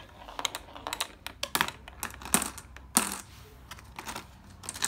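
Glass marbles clicking and clattering on a plastic marble-run track: a quick, irregular run of light clicks, with louder clacks a little past two seconds and about three seconds in.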